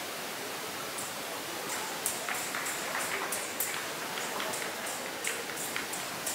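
Urumi, the flexible steel whip-sword of kalaripayattu, swung in a routine: short, sharp metallic clinks and swishes, irregular at about two or three a second, over a steady hiss.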